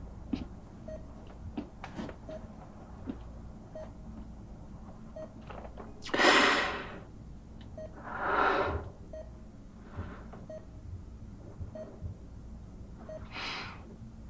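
A man crying silently, with shaky breaths and sniffles: the loudest, sharpest breath comes about six seconds in, another comes about two seconds later, and a softer one comes near the end. Under it a soft, short electronic beep repeats steadily about every three quarters of a second.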